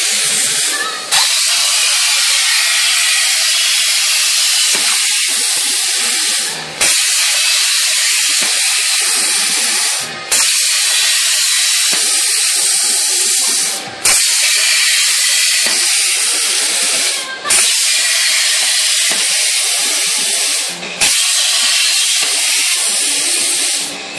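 Plasma torch of a PlasmaCam CNC table cutting metal plate: a loud, steady hiss that drops out briefly and restarts with a sharp onset every three to four seconds, as the arc shuts off between one cut circle and the next.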